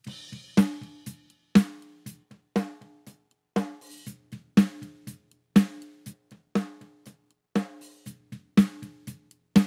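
Recorded snare drum track played back with EQ and saturation processing applied: a heavy, ringing snare hit about once a second, with fainter drum hits in between.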